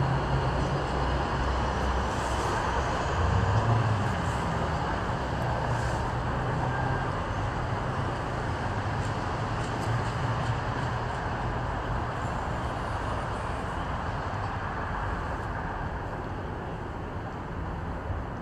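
Steady low rumbling background noise with a brief swell a few seconds in.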